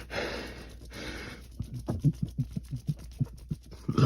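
A person breathing out heavily, then a quick, irregular run of short, low gulping sounds in the throat, several a second, with a louder burp starting right at the end.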